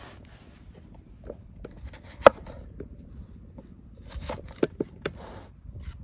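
Kitchen knife cutting an onion on a wooden board: a few sharp knocks of the blade striking the wood, the loudest about two seconds in and a quick cluster of them a couple of seconds later.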